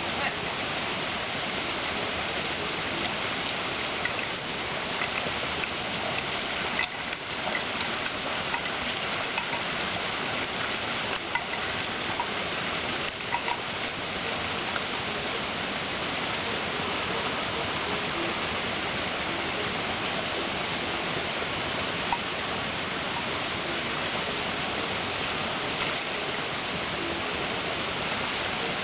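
Steady rush of flowing water in a flooded rice paddy, an even noise that does not let up, with a few faint small ticks and splashes.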